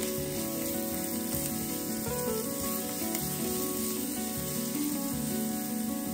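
Diced onion sizzling in hot oil in a frying pan, a steady hiss, over steady background music.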